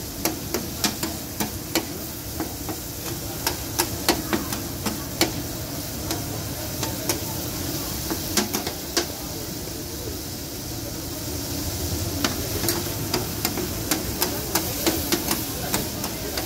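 Steel spatula scraping and tapping on a large flat metal tawa griddle while liver sizzles on it: irregular sharp clicks, a few a second, over a steady hiss.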